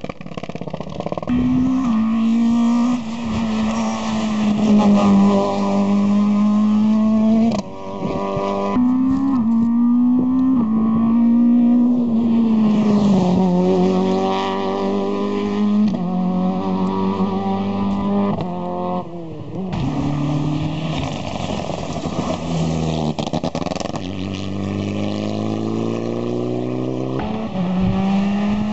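Rally car engines revving hard under full throttle up a hillclimb course: the engine note climbs and drops back again and again with gear changes, as one car after another passes.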